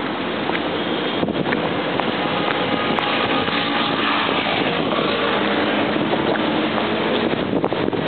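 Steady noise of traffic on a busy urban expressway, cars passing close by with a faint engine hum over the tyre noise.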